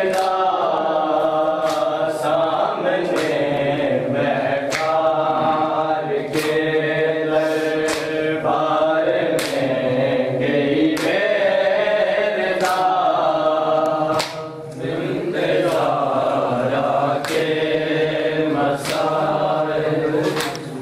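Men chanting a Muharram mourning lament (noha) over matam chest-beating. The open-handed strikes on the chest land in pairs, two blows close together, about every one and a half seconds.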